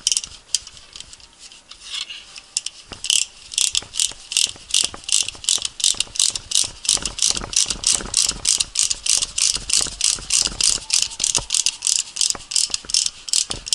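Ratcheting brake caliper piston spreader being worked, its pawl clicking in a steady run of about three to four clicks a second that starts a few seconds in after a few scattered clicks.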